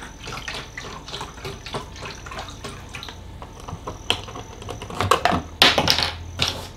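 Chicken broth gurgling as it is poured from a carton into a measuring cup, followed later by a few knocks and rustles as the carton is capped and set down.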